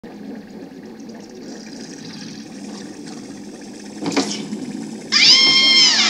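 A cartoon sound effect played through a TV speaker. A short thump about four seconds in is followed, about a second later, by a loud, high, drawn-out squeal that holds its pitch and drops away at the end, over a low background hum.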